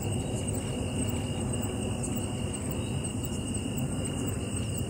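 Night insects chirping steadily in two high, even tones over a constant low rumble.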